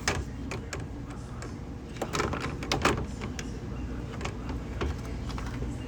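Scattered light clicks and knocks, a denser cluster of them about two to three seconds in, as a washer's repaired control board is fitted back into its housing.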